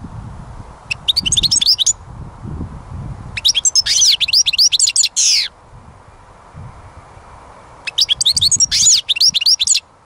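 European goldfinch singing: three bursts of rapid, high twittering notes, the first about a second in, the longest in the middle, and the last near the end.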